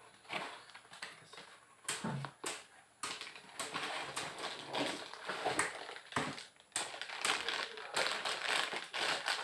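Cardboard box being opened by hand and a plastic-wrapped unit pulled out: irregular scraping and tapping of cardboard, then crinkling plastic packaging.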